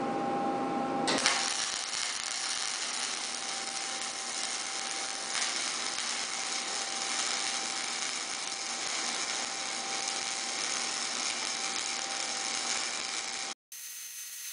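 Lincoln MIG-PAK 10 wire-feed welder's arc crackling steadily as a bead is run on a steel beam, starting abruptly about a second in and cutting off near the end.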